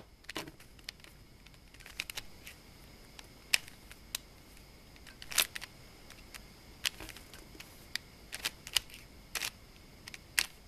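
Rubik's cube layers being turned by hand while an algorithm is performed: irregular plastic clicks and clacks, about one a second with some closer together.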